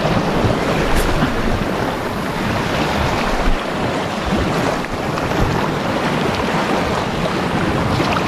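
Small waves washing and splashing over shoreline rocks, a steady rush of surf, with wind buffeting the microphone.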